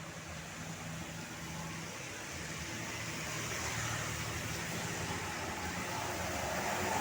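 Road traffic: a vehicle approaching, its low engine hum and road noise growing steadily louder.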